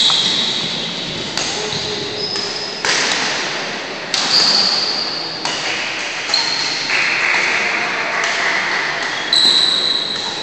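Badminton being played in a large echoing hall: sharp racket-on-shuttlecock hits about every second and a half, each ringing out in the room, with high squeaks of shoes on the wooden court.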